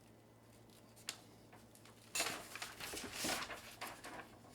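A light click about a second in, then about two seconds of rustling handling noise as the filter kit's packaging is unwrapped and handled.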